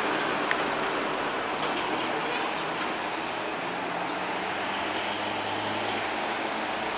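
Diesel engine of a coach bus pulling uphill and fading as it moves away, over a steady road rumble; another engine's low hum grows louder in the second half. Faint short high chirps repeat about every half second.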